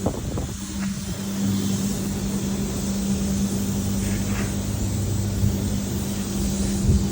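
A steady machine hum with a low rumble underneath and a few faint clicks.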